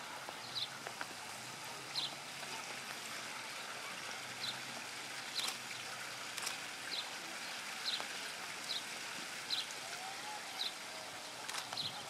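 Outdoor ambience: a steady hiss with short, high chirps every second or so and a few sharp clicks.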